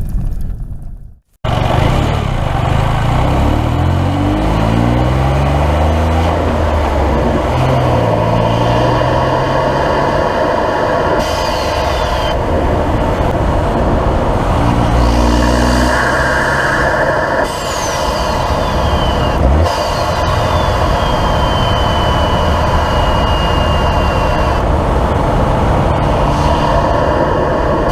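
Toyota GR Corolla's turbocharged 1.6-litre three-cylinder engine heard through an MST Performance cold air intake: intake noise and turbo flutter as the engine revs up and eases off. Several times a high turbo whistle falls in pitch as the turbo spools down. The sound cuts out briefly about a second in.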